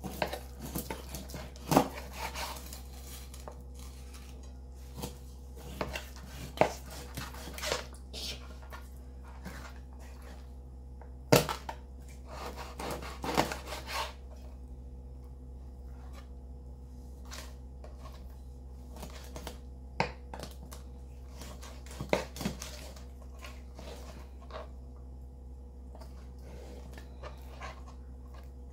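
Knife cutting through a whole milkfish on a plastic cutting board: rasping, crunching strokes through skin, flesh and bone, with irregular sharp knocks of the blade against the board.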